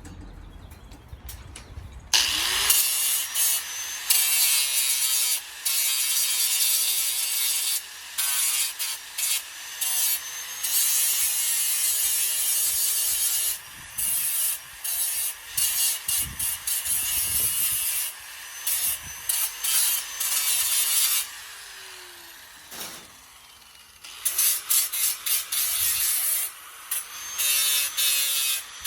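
Power grinder grinding down fresh flux-core welds on steel, in repeated passes that stop and start, its motor pitch wavering as it bites into the metal. It starts about two seconds in.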